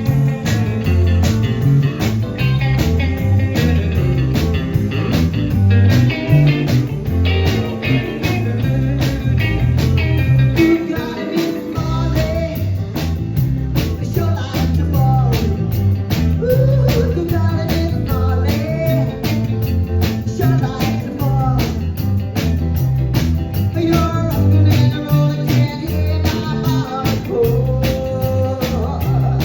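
Live rock and roll band playing, with a steady drum beat, a bass line, guitar and some singing.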